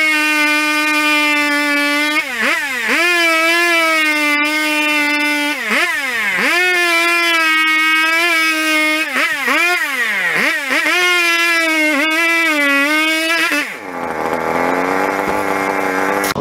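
McCulloch 850, a large vintage two-stroke chainsaw with a 32-inch bar and skip-tooth chain, cutting through a log at full throttle. Its revs sag and climb back several times, then drop to idle near the end.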